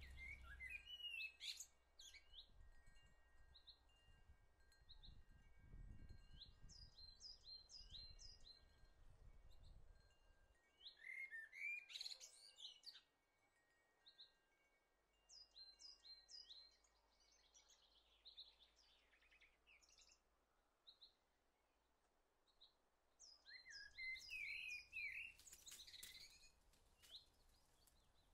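Small birds singing and chirping outdoors: short, high repeated chirps and whistled phrases that come in clusters, loudest about a second in, around twelve seconds in and again near the end, with a faint low rumble during the first third.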